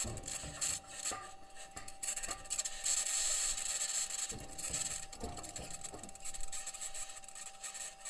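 Perseverance Mars rover driving, picked up by its entry-descent-landing microphone: irregular low knocks and rattles from the wheels and suspension meeting the ground, under a constant high-pitched scratching. Engineers are unsure of the scratching's source; it may be electromagnetic interference from one of the rover's electronics boxes or the mobility system interacting with the surface.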